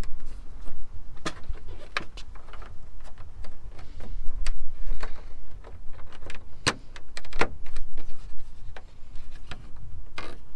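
Irregular sharp plastic clicks and taps as fingers press parts into the slots of a truck's plastic front grill, over a steady low rumble.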